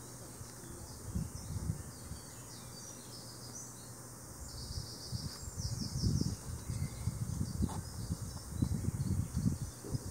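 Wind buffeting the microphone in irregular low gusts, strongest in the second half, over a steady outdoor hiss. Faint, short high chirps sound in the background, most of them a few seconds in.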